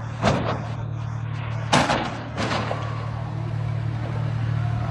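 Steady low hum of a vehicle engine, with three sharp thumps: one about a third of a second in, a louder one just under two seconds in, and a weaker one half a second later.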